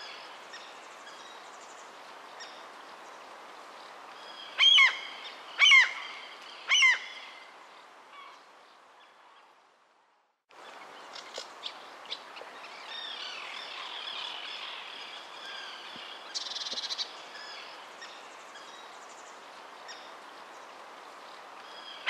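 Birds calling over a steady outdoor background, with three loud calls about a second apart around five seconds in, each sweeping down in pitch. The sound fades out a little before halfway and starts again moments later, with scattered chirps.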